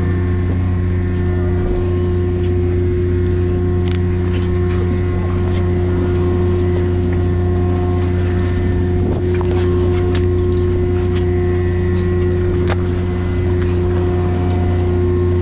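A fishing boat's engine running steadily: a constant low hum with a few fainter steady tones above it. Scattered light clicks and knocks come from the fish and tackle being handled on deck.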